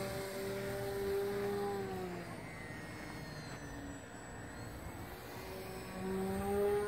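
Electric motor and propeller of a Liberty foam RC biplane in flight: a steady whine that drops in pitch and fades about two seconds in, then climbs again near the end as the motor speeds up.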